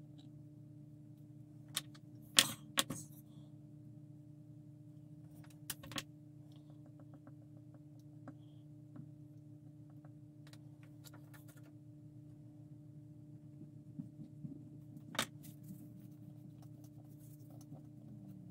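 A few sharp clicks and taps from hands handling a plastic model kit and small tools while applying decals, loudest about two and a half seconds in, with a couple more near six seconds and one near fifteen. A steady low hum runs underneath.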